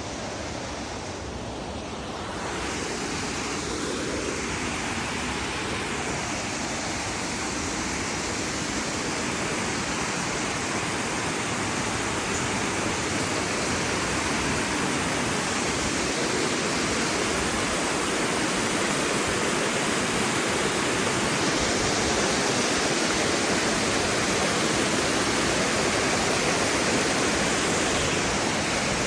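Waterfall: falling water rushing steadily, a dense even hiss. It gets louder about two seconds in and keeps swelling slowly.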